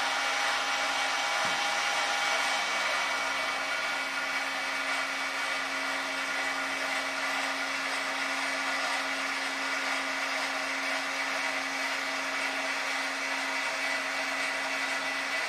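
Sky-Watcher AZ-GTi mount's drive motors whining steadily as the mount slews the telescope under GoTo control to its first alignment target.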